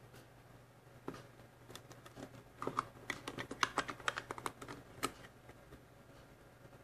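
Light plastic clicks and rattles as a 35 mm film cartridge is handled and seated in the film chamber of a Dolphin Spinner 360 panoramic camera. A quick run of small clicks in the middle is followed by one sharper click about five seconds in.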